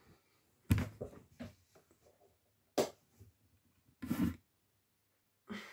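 A few short rustles and bumps of a duvet and bedding as someone sits up and stretches in bed, about four of them with quiet in between.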